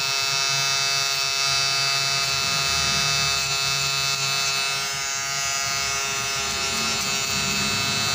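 Wahl Finale foil shaver running with a steady high buzz as its foil is worked over the skin at the hairline, cutting short hair.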